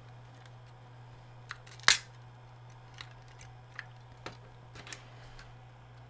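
Plastic clicks and snaps from a Dish Network remote's case clips being pried apart: one sharp snap about two seconds in, then scattered lighter ticks, over a steady low hum.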